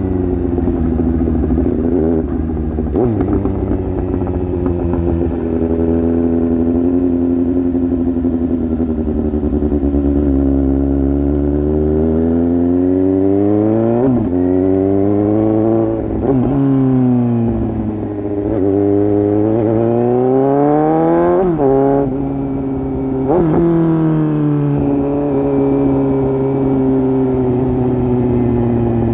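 Suzuki GSX-S750 inline-four engine running through an exhaust with its dB killer removed. It runs steadily at first, then its pitch climbs several times and drops sharply at each gear change, and it runs more steadily again near the end.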